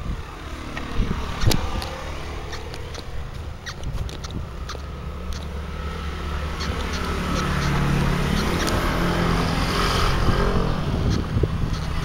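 A motor vehicle's engine running and growing louder, loudest about eight to ten seconds in as it passes by, with scattered sharp clicks.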